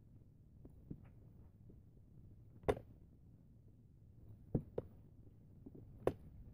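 About five short light clicks and taps of a small terracotta pot being handled as a leaf cut-out is pressed onto it, the loudest about three seconds in and a quick pair a little later.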